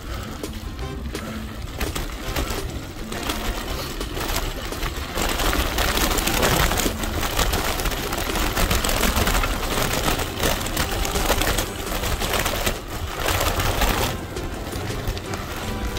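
Gravel bike rolling over a rough dirt and gravel road: tyres crunching on gravel and the bike and handlebar-mounted camera rattling steadily over the bumps. It gets louder about five seconds in.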